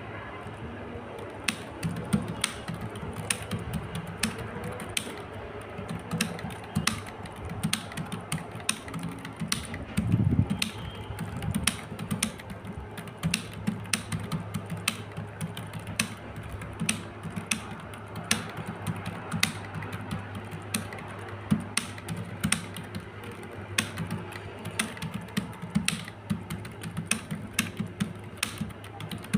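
Fast, continuous typing on a computer keyboard: a steady stream of key clicks, with a louder thump about ten seconds in. A steady low hum runs underneath.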